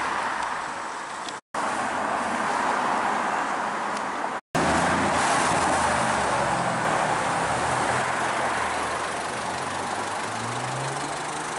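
Performance cars driving past on a town street, engine and tyre noise over traffic, with an engine revving up near the end. The sound drops out briefly twice where separate clips are joined.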